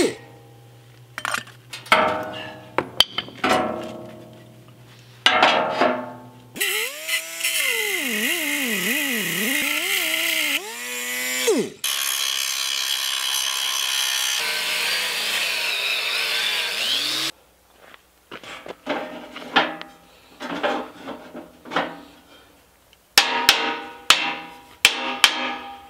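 Handheld electric angle grinder grinding steel welds on a mixer frame, its motor pitch dipping and recovering as it is pressed into the work, then a steady stretch of grinding. Before and after, separate metal knocks, ending in a quick run of hammer blows on steel channel.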